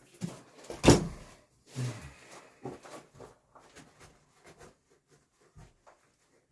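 Tools and hardware being handled: one sharp knock about a second in, then a string of lighter clicks and taps that thin out.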